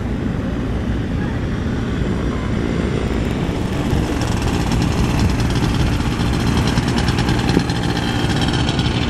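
Low steady noise at first, then from about three seconds in the small engine of a Duo Banjo motorglider running steadily, spinning the propeller on its mast behind the cockpit with a fast even buzz.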